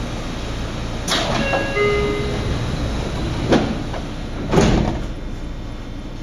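Tokyu 9000-series train's sliding passenger doors closing: a falling hiss with a few brief steady tones about a second in, a knock about three and a half seconds in, then a heavier thud as the doors shut about four and a half seconds in. A steady low hum runs underneath.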